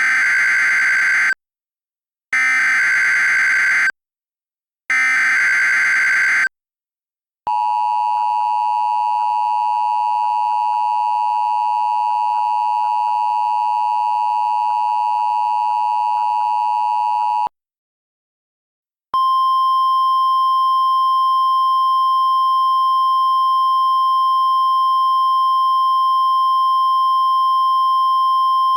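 Emergency Alert System tones: three short screeching data bursts of the digital header, then a steady two-tone attention signal for about ten seconds, and after a short gap a single steady weather-radio tone for about ten more seconds. The tones are generated for a simulated tornado-warning alert.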